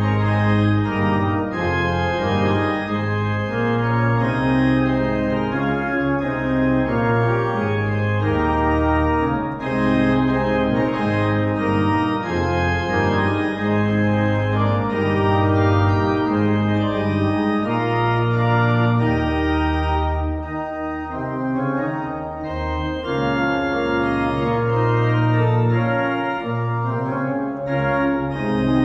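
Organ playing a postlude of full, sustained chords over a deep bass line, the chords changing every second or so.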